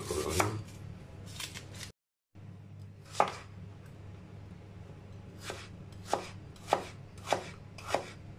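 Chef's knife cutting garlic and then slicing a red onion on a plastic cutting board: sharp knocks of the blade on the board at each cut, coming about every half second in the second half, over a steady low hum.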